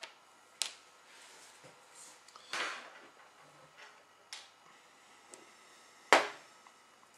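Small plastic model-signal parts being handled and set down on a cutting mat: a few sharp clicks and taps, with a brief rustle about two and a half seconds in. The loudest tap comes about six seconds in.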